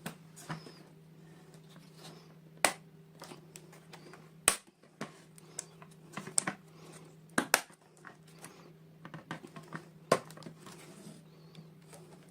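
Hands unboxing miniature dolls and their toy packaging: scattered sharp clicks and taps with softer handling rustle between them, over a steady low hum.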